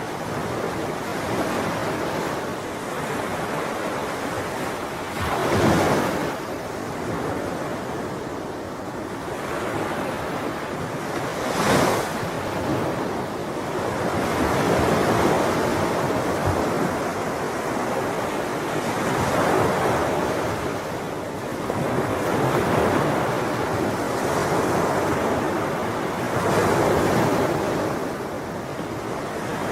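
Sea waves washing onto a shore in slow swells that rise and fall every few seconds, with two sharper, louder breakers about six and twelve seconds in.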